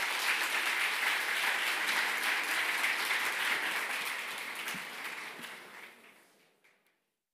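Audience applauding in a hall, dense clapping that fades away after about five seconds and stops near the end.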